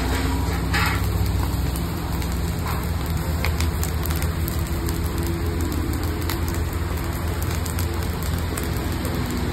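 Chicken and mutton skewers sizzling over glowing charcoal, a dense crackle with scattered sharp pops, over a steady low hum.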